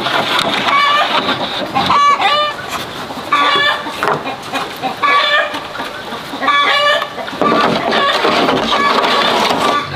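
Domestic poultry calling repeatedly in short pitched bursts, a new call every second or so.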